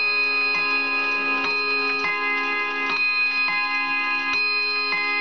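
Kieninger wall clock sounding a run of struck metal notes, a new strike about every half-second to a second, each note ringing on under the next.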